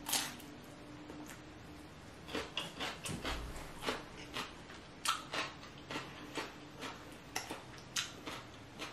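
A crisp bite into a raw cucumber, then crunchy chewing close to the microphone. The crunches come as many short, irregular crackles, thickest from about two seconds in.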